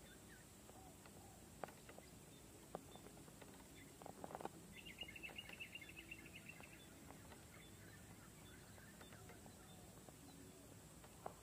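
Near silence with faint bird calls, including a rapid trill of repeated high notes about halfway through, and a few faint scattered clicks.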